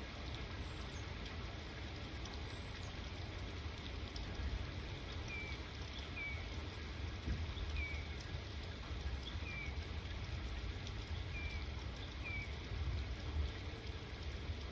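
Steady rain falling, with a deep rumble underneath. Through the middle a bird repeats a short, falling chirp about once a second.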